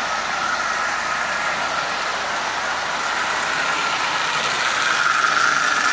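Marx 999 toy steam locomotive, fitted with a single-reduction motor, running steadily on three-rail track with its train of cars: an even motor-and-wheel hum that grows a little louder near the end. The locomotive is running smoothly.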